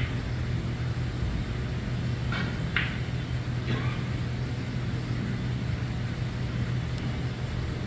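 Steady low hum of a snooker hall's room noise, with a few short clicks between about two and a half and four seconds in.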